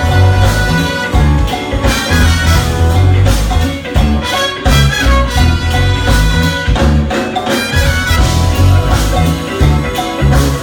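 Jazz-fusion band playing live at full volume, with a heavy bass and drum groove under keyboards and horns.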